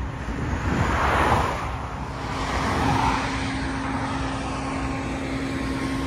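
Road traffic going by: two vehicles swish past in the first three seconds, then a steady engine hum sets in as the Claas Lexion combine harvester on rubber tracks drives past with its escort car.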